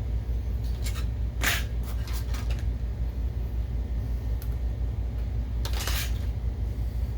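BenQ HT1085ST DLP projector's cooling fans running with a steady low hum, now that the lamp fragment that was jamming the fan has been removed. A few short clicks and rustles of handling come about one and a half seconds in and again near six seconds.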